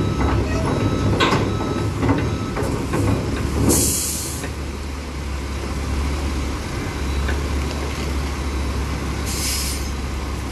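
Low steady rumble of heavy diesel machinery, with two short bursts of hissing air release, one about four seconds in and one near the end, and a few knocks in the first seconds.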